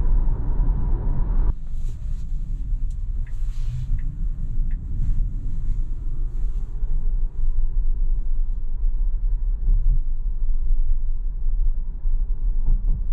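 Road and tyre rumble inside the cabin of a Tesla Model Y Performance electric SUV on the move. The louder, wider noise stops abruptly about a second and a half in, leaving a steady lower rumble at town speed.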